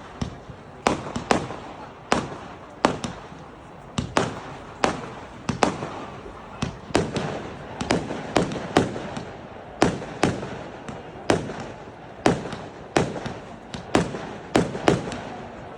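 Fireworks display: a rapid run of sharp bangs from bursting aerial shells, about two a second, with crackling between them.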